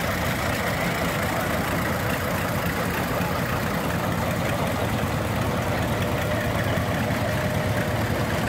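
Vintage John Deere two-cylinder tractors driving slowly past, their engines running with a steady, rapid low pulsing.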